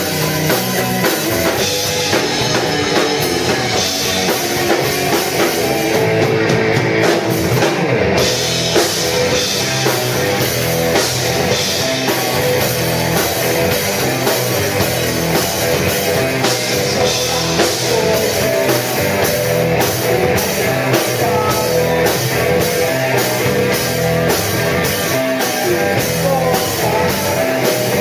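Live rock band playing loud: electric guitars, electric bass and a drum kit with cymbals.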